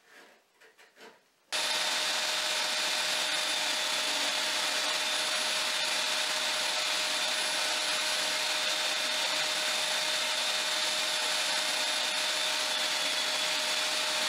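Faint handling sounds at the bench, then about a second and a half in an electric drill in a drill stand starts abruptly, running at a steady speed with a constant whine as it bores into a wooden board.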